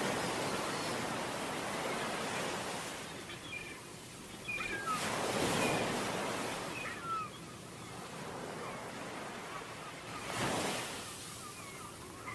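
Ocean surf breaking on a beach, swelling about every five seconds, with faint short high chirps scattered through.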